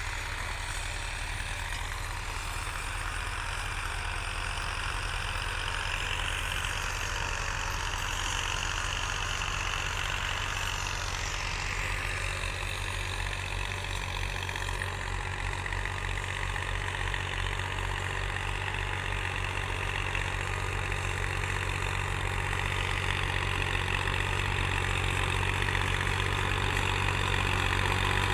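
A diesel farm tractor's engine running steadily as it pulls an implement across a tilled field. It grows louder near the end as the tractor comes closer.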